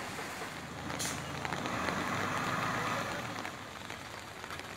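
Rain falling on a wet street while a motor vehicle runs and passes, louder about two to three seconds in, with a short sharp hiss about a second in.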